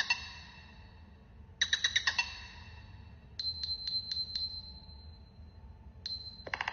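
Nothing Phone (1) ringtone: quick runs of bright, metallic pings, the second run about two seconds after the first, then a few sharp clicks over a high held tone that fades slowly. Near the end a new, denser run of pings begins.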